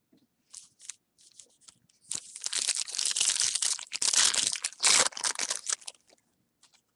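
A foil trading-card pack wrapper being torn open and crinkled by hand. A few light ticks come first, then about four seconds of loud crackling.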